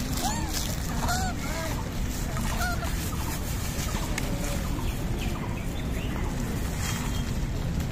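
Macaques giving a series of short, arched, whining coo calls, several in the first three seconds, over steady outdoor background noise, with a brief rustle of a plastic bag near the end.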